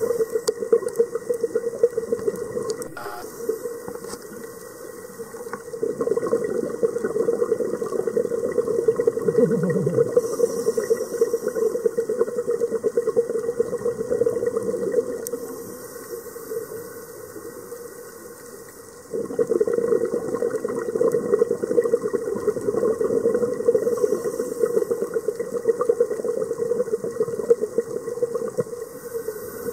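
Scuba diver's breathing heard underwater through the camera housing: exhaled bubbles from the regulator rush and crackle in long stretches, with quieter gaps between breaths about three seconds in and in the middle. The bubbling starts again abruptly about two-thirds of the way through.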